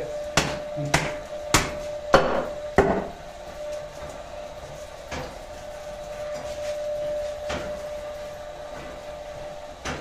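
Meat cleaver chopping through roast lamb and bone onto a wooden cutting board: five quick, sharp chops in the first three seconds, then a few single chops spaced out. A faint steady hum runs underneath.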